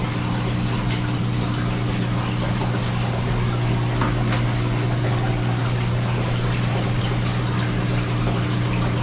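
Reef aquarium's water circulation running: a steady pump hum under continuous trickling, splashing water.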